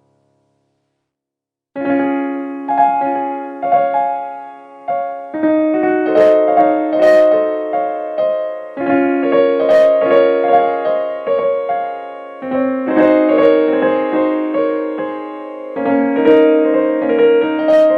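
Background piano music with a slow melody, starting about two seconds in after a brief silence.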